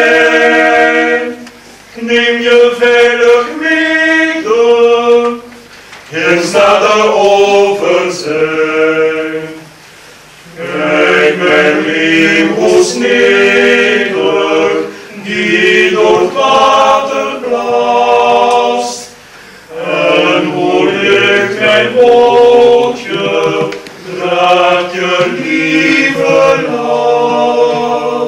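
Mixed chamber choir of men and women singing, in phrases of a few seconds separated by short breaks.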